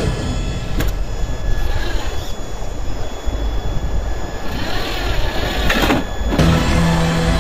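Outdoor rumble of wind on the microphone with the whine of the RC crawler's electric motor and drivetrain, the whine rising about four and a half seconds in. Music comes back in near the end.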